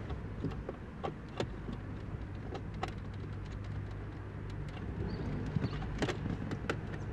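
Scattered light clicks and knocks of plastic dash trim and wiring plugs being handled as the climate control panel is plugged back in, over a steady low hum.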